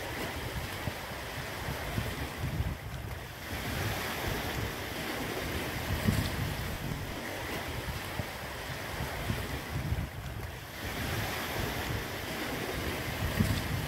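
Wind rumbling on the microphone over a steady hiss of sea surf, easing briefly about three seconds in and again around ten seconds.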